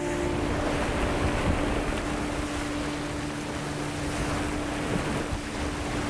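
A steady rushing noise with one held low note of background music underneath.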